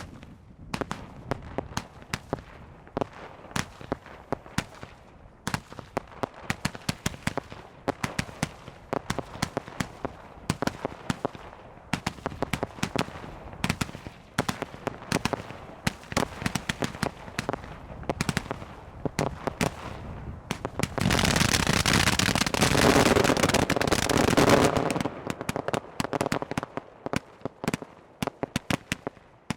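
Aerial fireworks display: a steady stream of sharp bangs and crackling shell bursts, building to a dense, loud stretch of continuous crackle about two-thirds of the way in, then thinning to scattered pops near the end.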